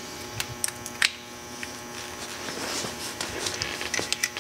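Light metallic clicks and taps from an ATV rear brake caliper, its pins and brake pads being handled and fitted back into place. The clicks are scattered, more frequent near the end, over a steady electrical hum.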